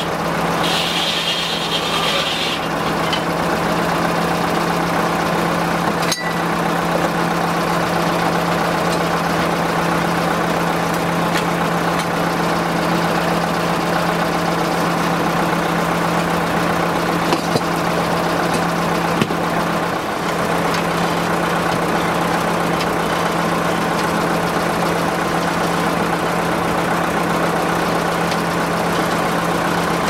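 Old circular sawmill running idle: its engine and spinning blade keep up a steady hum. A high whine of the blade in wood fades out about two seconds in, and a few knocks come as the log is turned on the carriage.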